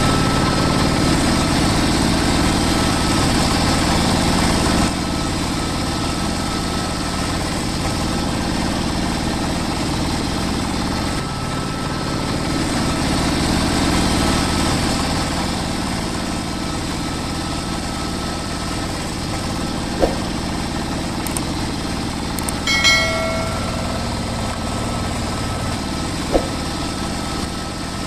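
Small electric motor driving a miniature DIY construction machine, running steadily with a faint whine. There are a couple of light clicks and a short squeak about two-thirds of the way through.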